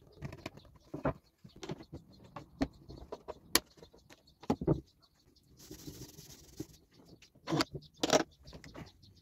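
Bar clamps being fitted and tightened across a wooden panel: irregular clicks and knocks of the clamp jaws and metal bars against the boards and bench, with a brief scrape about six seconds in. The loudest knocks come about three and a half seconds in and again near the end.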